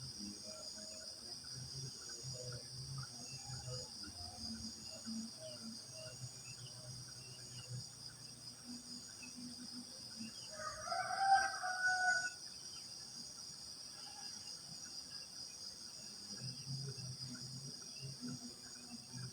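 Crickets chirring steadily at a high pitch, with scattered small-bird chirps, and a rooster crowing once about eleven seconds in, the loudest sound.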